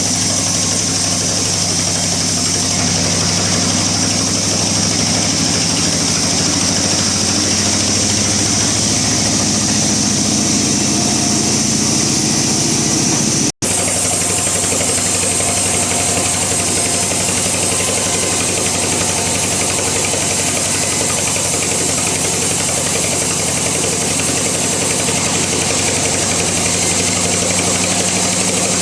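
Bandsaw running steadily, its motor giving a constant hum under the hiss of the blade. The sound cuts out for an instant about halfway through.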